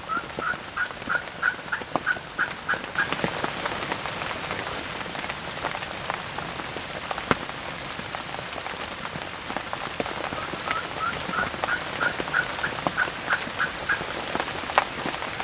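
Two runs of turkey yelps, about a dozen quick, evenly spaced notes each, stepping slightly up in pitch: one at the start and another about ten seconds in. Rain patters steadily throughout.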